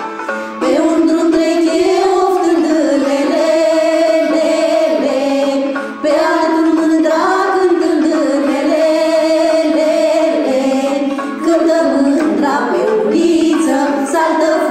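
Girls' and women's voices singing a Romanian folk song together in phrases, with short breaks between phrases about six and eleven seconds in.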